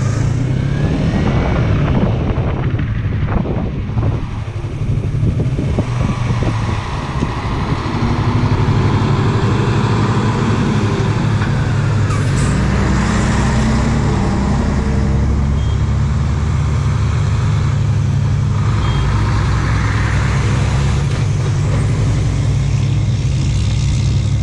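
Yamaha R3 parallel-twin motorcycle engine running at low road speed, with the deeper sound of heavy diesel dump trucks passing close by through the middle.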